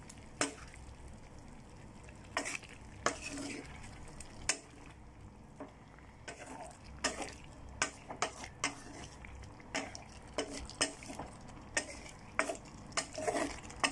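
A spatula stirring chicken pieces, gizzards and liver in sauce in a pan, knocking and scraping irregularly against the pan, with a light sizzle underneath.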